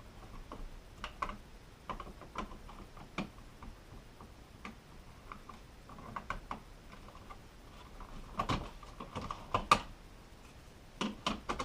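Plastic slide-switch covers being pulled off and clicked back onto toggle wall switches: scattered light plastic clicks and handling, with a few sharper snaps about two-thirds of the way through and again near the end.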